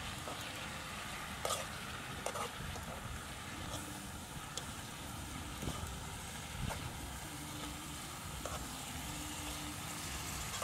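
Pot of food sizzling over a wood fire, with several scattered sharp clicks and knocks, likely from a utensil against the pot or the fire crackling. A steady low rumble runs underneath.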